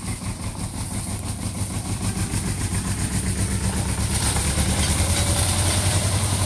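Bolinder Munktell Victor 230 tractor's diesel engine idling with a steady, even beat, growing louder.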